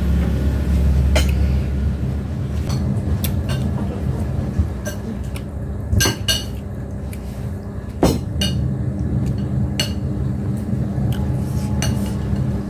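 Light, scattered clinks and taps on a ceramic plate as rice and side dishes are eaten by hand, with two louder knocks about six and eight seconds in. A steady low hum runs underneath.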